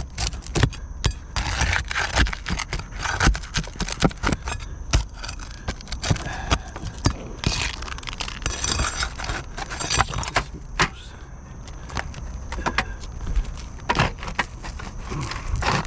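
Asphalt roof shingles being pried and worked loose with a metal tool: irregular metallic clinks, knocks and scrapes, many short sharp strikes in quick succession.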